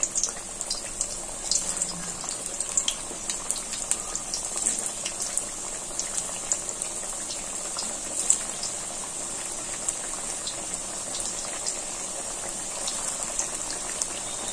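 Poha vadas (flattened-rice fritters) deep-frying in hot oil in a kadai: a steady sizzle with many small pops and crackles.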